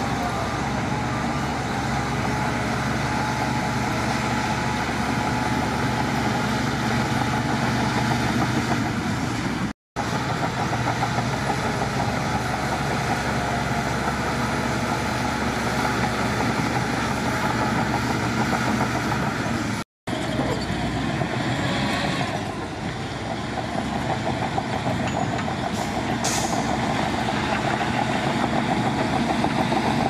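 Shantui crawler bulldozer's diesel engine running steadily under load as it pushes soil, cut by two brief gaps about ten and twenty seconds in. After the second gap a different heavy diesel engine scene follows, with a short hiss about six seconds later.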